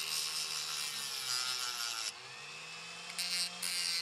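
Small handheld rotary tool running and grinding into the plastic hub of a computer fan to get at the motor's permanent magnet. The motor hums steadily while the grinding is louder in the first two seconds and again near the end, lighter in between.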